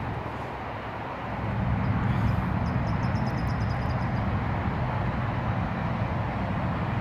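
Steady rumble of distant road traffic, with a quick run of faint high chirps a few seconds in.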